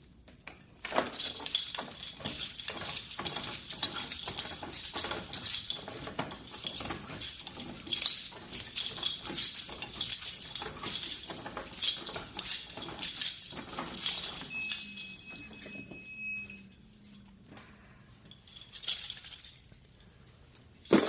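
Rapid, continuous clinking and clattering of small hard objects, like coins or bottles being handled, for about fifteen seconds. It is followed by a steady high beep lasting about two seconds.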